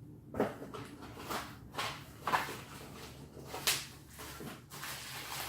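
Parts packaging being handled and opened: a series of short, irregular rustles and knocks.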